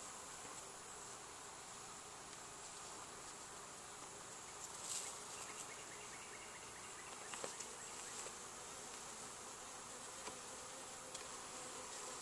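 Honeybees in an opened hive, buzzing in a faint, steady hum. A metal hive tool prying at the wooden frames adds a few short scrapes and clicks about five seconds in, and again around seven to eight seconds.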